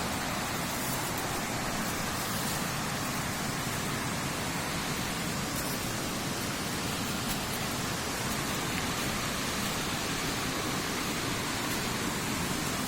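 Steady rushing of water from a waterfall coming down off the hills.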